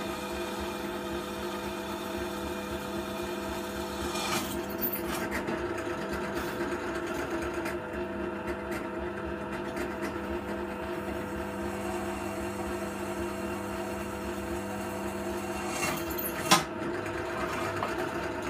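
Bench drill press motor running steadily while a pilot hole is drilled in an aluminium enclosure. A sharp knock comes about sixteen and a half seconds in.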